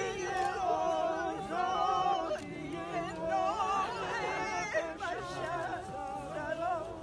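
Several voices singing a slow, wavering melody together, their lines overlapping rather than in unison; the singing thins out after about five seconds.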